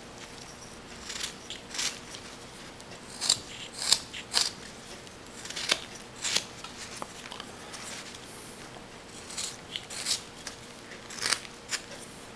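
Whittling knife slicing chips off a small wooden block: about a dozen short, crisp cuts at irregular intervals.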